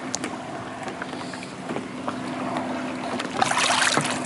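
Water lapping around the hands holding a redfish in the shallows, then about three seconds in a loud burst of splashing as the released redfish kicks free and swims off.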